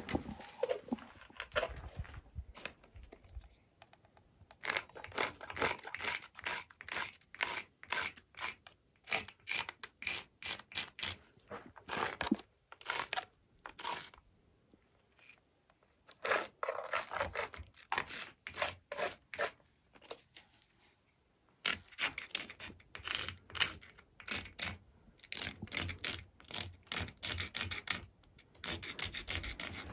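Carpenter's pencil scratching on a rough concrete block wall in runs of quick back-and-forth strokes, marking out the outline of an electrical box, with a couple of short pauses.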